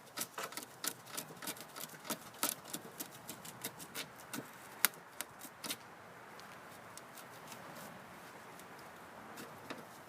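Razor blade cutting and picking at Spanish moss wound tightly around a lawn mower's drive axle: sharp, irregular clicks and scrapes, a few each second, for about the first six seconds, then only a faint steady hiss. The wrapped buildup is suspected of binding the axle and stopping the drive.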